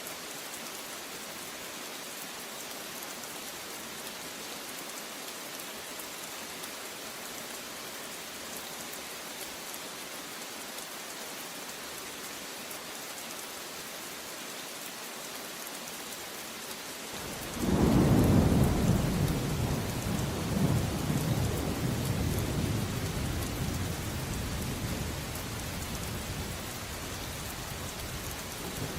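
Steady heavy rain hissing, then about 17 seconds in a thunder clap breaks out suddenly and rolls away slowly over the next ten seconds in low rumbles.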